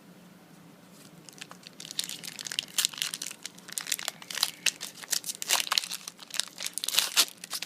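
Foil wrapper of a Yu-Gi-Oh booster pack being torn open and crinkled by hand, a dense crackling that starts about a second and a half in.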